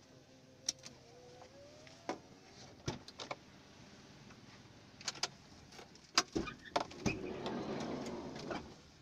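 A motorbike passes close by for about a second and a half near the end, its engine noise swelling and then cutting away. Before that come scattered sharp clicks and knocks.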